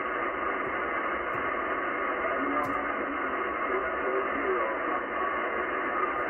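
Yaesu FTDX10 transceiver receiving upper sideband on the 10-meter amateur band: steady, narrow, band-limited static hiss, with a weak single-sideband voice faintly audible under the noise from about two and a half seconds in.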